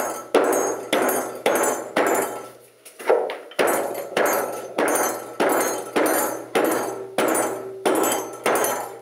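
Wooden rolling pin pounding dry ice wrapped in a kitchen towel on a wooden table, about two blows a second with a brief pause about three seconds in. The dry ice pellets are being crushed to powder.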